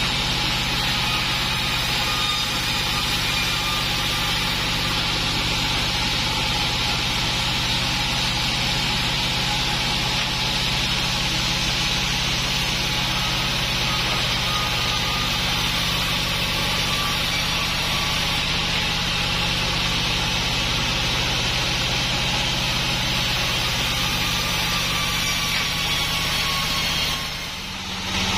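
Sawmill log band saw and its drive engine running steadily, a continuous loud mechanical drone. The sound dips briefly near the end, then carries on.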